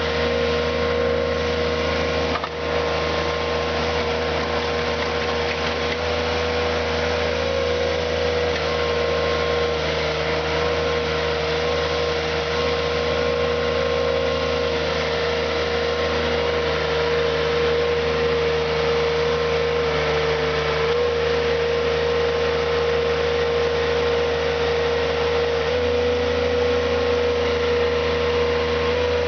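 Mattson mini skid steer loader's engine running steadily while the 400 mm auger works, its pitch sagging slightly and recovering a few times. There is a brief drop in loudness about two and a half seconds in.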